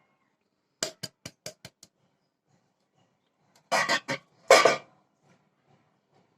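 A quick run of six light taps about a second in, then a louder clatter of knocks near the middle: a kitchen utensil or flour container knocked against a mixing bowl while the last of the flour is tipped into cake batter.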